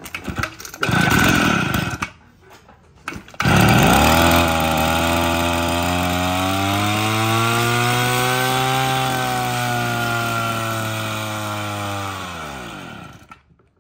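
Echo two-stroke brush cutter engine pull-started: the first pull is a short burst that doesn't keep running, and it catches on a second pull about three seconds in. It then runs steadily at low speed for about eight seconds before being shut off, its pitch sliding down as it winds to a stop near the end.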